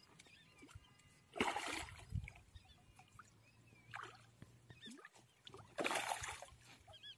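A hooked fish thrashing and splashing in shallow water at the shoreline as it is brought in, in two bursts: one about a second and a half in and a louder one about six seconds in.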